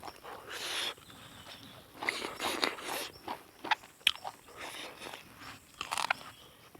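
Close-up eating sounds: irregular chewing and crunching bites with sharp mouth clicks, a person eating rice and meat.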